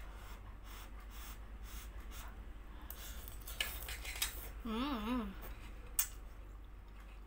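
Instant noodles being slurped from a cooking pot, with a metal fork clicking and scraping against the pot. A short wavering hum, mouth full, about five seconds in.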